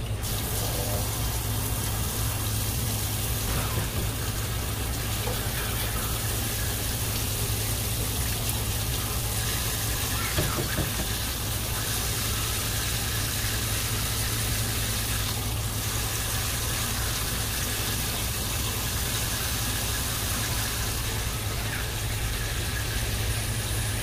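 Tap water spraying steadily onto a plastic cutting board, a constant hiss, over a steady low hum.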